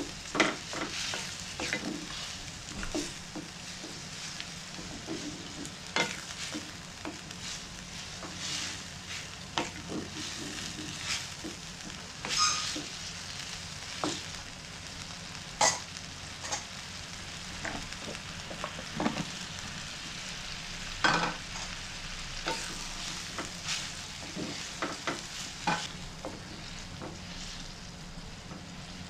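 Wooden spatula stirring a thick beef curry in a non-stick frying pan, with irregular scrapes and knocks against the pan over the simmering sauce.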